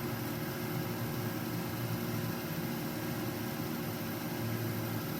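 Steady low hum with a light hiss, unchanging throughout.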